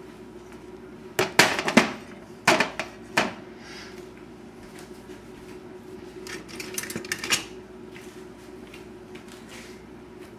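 Saucepan and silicone spatula knocking and scraping against a stainless-steel mixing bowl as chocolate mixture is scraped out onto whipped egg whites. A cluster of sharp knocks comes from about a second in to about three seconds, then lighter taps around six to seven seconds, over a steady low hum.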